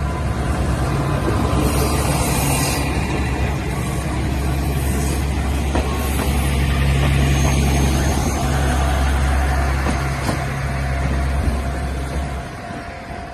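Aizu Railway AT-351 and AT-401 diesel railcars running close by, their diesel engines giving a loud steady low drone that cuts off about twelve seconds in.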